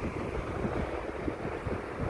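Wind buffeting the microphone in uneven gusts, over a steady wash of ocean surf breaking on rocks below.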